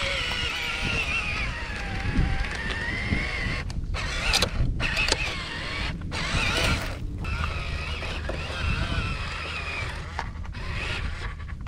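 Small electric motors of radio-controlled construction models whining, their pitch wavering as they change speed, over a low rumble; the whine cuts out briefly several times.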